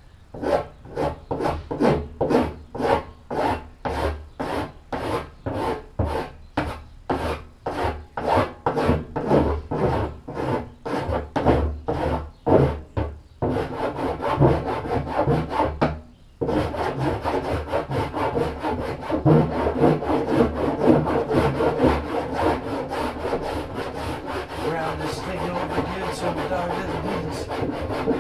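Hand rasp filing the cut edge of a plastic barrel to round it off. It goes in even back-and-forth strokes, about two a second, then after a brief pause about halfway through turns into faster, almost continuous rasping.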